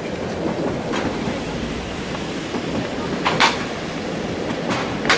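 A heavy vehicle running with a steady rumble, broken by a few sharp metallic clanks, the loudest about three and a half seconds in.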